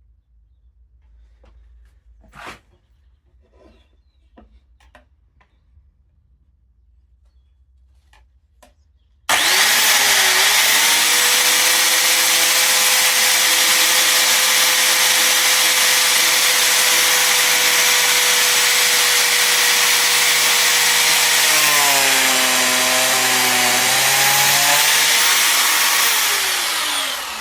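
A few light clicks and knocks, then about nine seconds in a biscuit jointer switches on and runs at full speed with a steady whine. Near the end its pitch dips and wavers as the badly worn blade plunges into the wood to cut a slot, and then the motor winds down.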